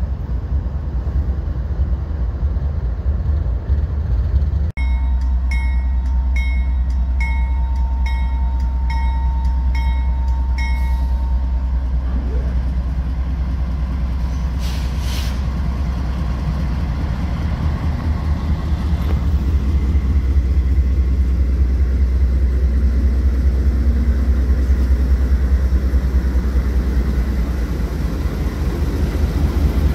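Freight train rolling past, then a Norfolk Southern AC44C6M diesel-electric locomotive approaching and passing close, its deep engine rumble growing louder as it nears. A bell rings steadily for about six seconds, and there is a brief hiss about halfway through.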